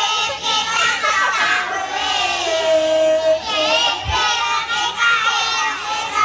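A group of young children singing together in unison into microphones, with long held notes that bend in pitch. A brief low bump sounds about four seconds in.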